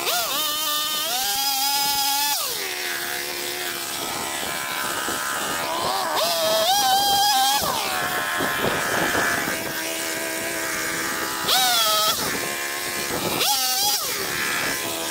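Small gasoline chainsaw revving up to full throttle four times as it cuts through wood, its pitch wavering under load, and dropping back to a steady idle between cuts.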